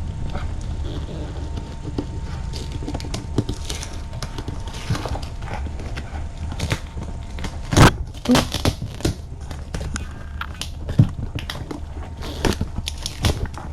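Irregular clicks, taps and small knocks over a steady low hum, the loudest a sharp knock about eight seconds in with a short cluster just after it.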